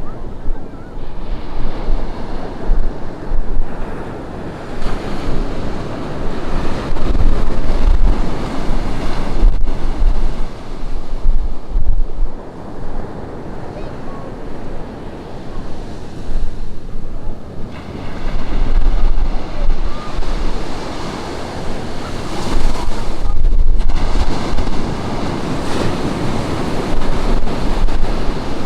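Ocean surf breaking and washing up a beach, swelling and easing every several seconds, with wind buffeting the microphone in low rumbles.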